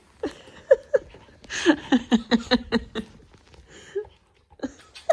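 A person laughing: a breathy intake, then a quick run of about seven short bursts falling in pitch, with a few shorter vocal sounds before and after.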